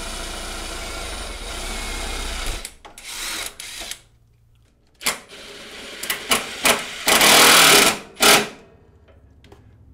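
Cordless drill boring small holes through a lawn mower's steel frame: a steady run for the first couple of seconds, then a few short bursts. After a brief pause, more bursts as it drives self-drilling screws, the loudest run near the end.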